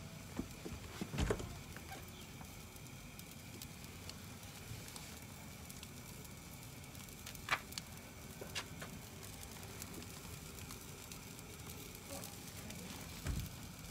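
Roccbox gas pizza oven's burner flame running with a faint steady hiss, over scattered sharp crackles and pops. There are two dull thumps, one just after the start and one near the end.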